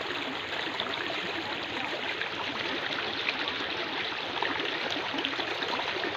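Floodwater pouring out through an opening at the base of a brick bridge pier and splashing into the channel, a steady rush of running water.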